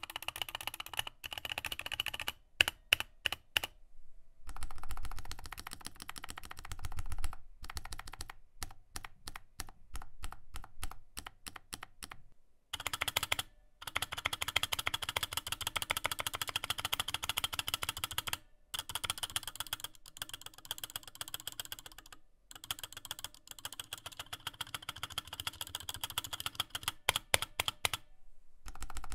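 Typing on a Glorious GMMK Pro, a gasket-mounted aluminium-cased mechanical keyboard fitted with a polycarbonate switch plate: fast runs of keystroke clacks, broken by several short pauses.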